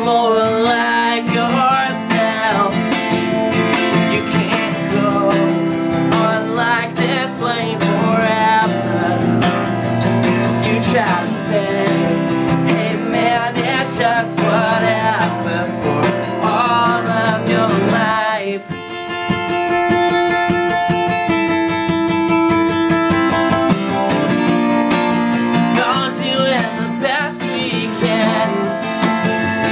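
Acoustic guitar strummed with a man singing over it, live and unamplified. About two-thirds through, the singing gives way to several seconds of long held notes before the bending sung lines return.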